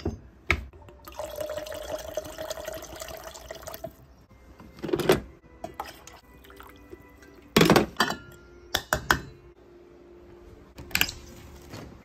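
Liquid pouring into a stainless steel tumbler for about three seconds, then a few separate knocks and clinks as bottles and a glass coffee carafe are handled on a countertop.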